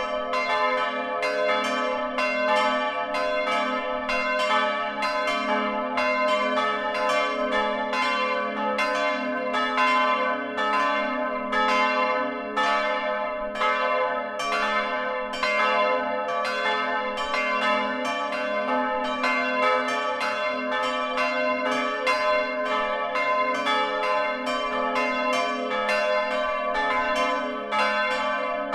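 Several church bells swinging and ringing together, recorded close up inside the bell tower: overlapping strokes, about two a second, over their steady ringing.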